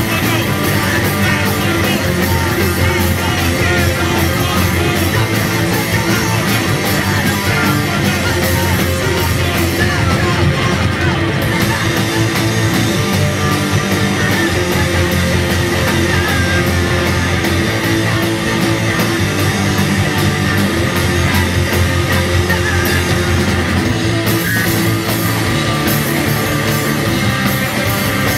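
Anarcho-punk band playing live and loud: distorted electric guitar over a drum kit with crashing cymbals. The cymbals drop back for a stretch in the middle.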